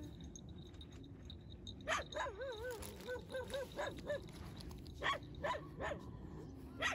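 Dogs barking and yelping: a sharp bark about two seconds in opens a run of wavering, whining yelps, then three quick barks come around five seconds and one more near the end.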